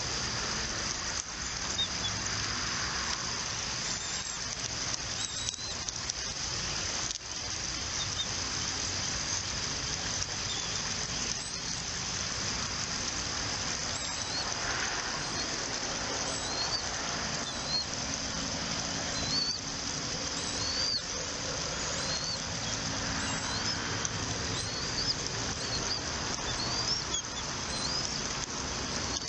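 Faint, short, high bird chirps repeating over a steady outdoor hiss at the nest.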